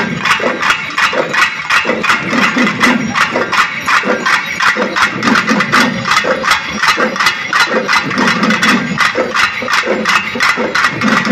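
A large ensemble of pambai, the Tamil folk double-drum, beaten together with sticks in a fast, even rhythm.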